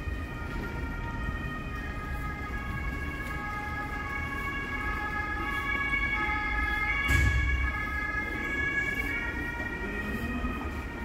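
Whine of a Stadtbahn train's electric drive echoing up from the platforms: several steady high tones that step up and down in pitch, over a low rumble. A short knock about seven seconds in.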